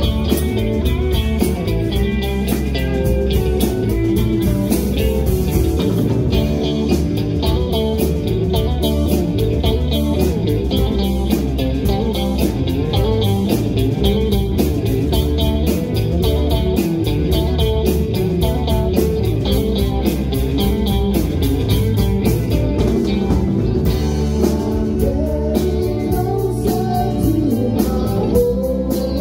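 A live rock band playing, led by electric guitars over bass guitar and a drum kit.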